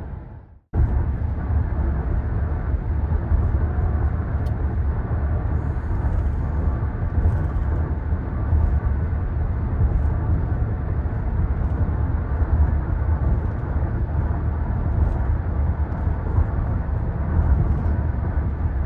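Steady low rumbling noise, cut off briefly just under a second in and then going on unchanged.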